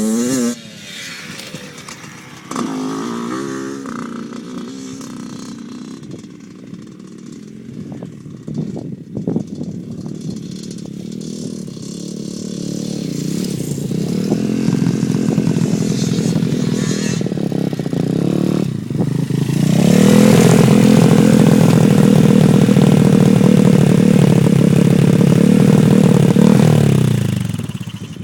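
Small dirt bike engine revving up and down as it rides by, with a few clattering knocks partway through. About two-thirds of the way in it holds loud, nearly steady high revs for several seconds, then drops off near the end.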